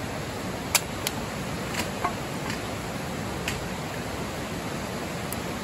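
Fast-flowing creek rushing steadily, with a handful of sharp woody cracks and clicks over it, the loudest just under a second in.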